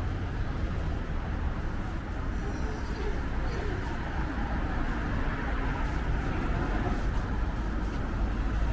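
Road traffic noise on a city street: a steady low rumble of passing cars.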